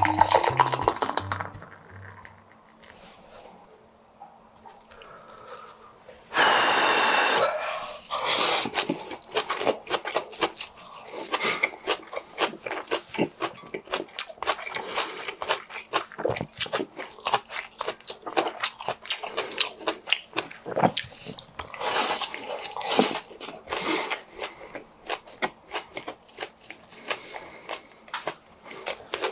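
Close-miked eating: chewing pork belly and minari with rapid wet mouth clicks and smacks. Near the start, beer is poured into a glass, and about six seconds in there is a brief loud vocal sound.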